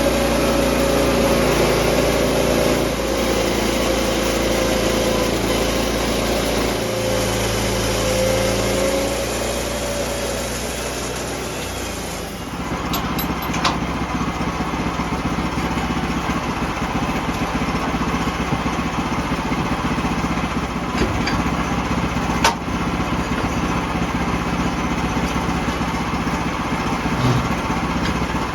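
Portable sawmill running under engine power, milling an oak log into a cant. A wavering whine rides over the engine for the first dozen seconds, then stops, and the machine runs on with a few sharp clicks.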